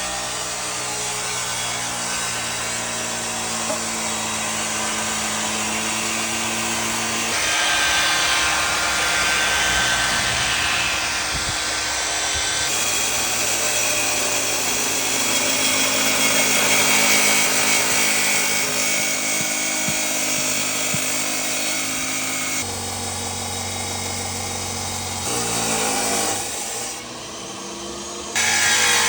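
Power tools running steadily on woodwork, the pitch and character of the machine sound changing abruptly several times.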